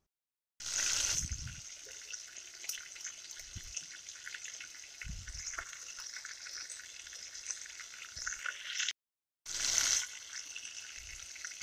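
Chicken pieces half-frying in oil in a pan: a steady sizzle with fine crackles, with a few low thumps.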